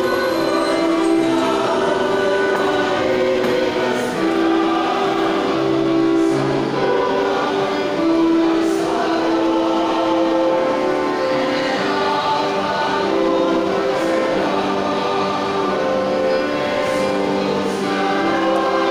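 Church choir singing a processional hymn in long, held notes.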